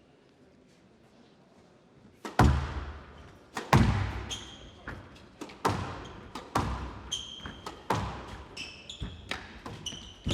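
Squash rally: the ball cracking off rackets and court walls in sharp hits about once a second, with short squeaks of court shoes on the floor between them. The rally starts about two seconds in, after a quiet pause.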